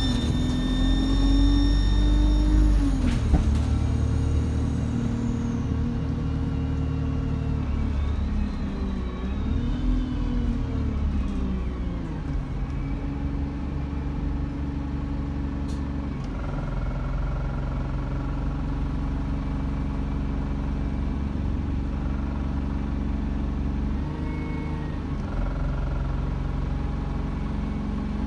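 Diesel bus engine with a whining turbocharger whistle. Over the first dozen seconds the engine note and whistle rise and fall as it accelerates and eases off, with a high whistle falling away early on. After that the engine runs steadily at low revs.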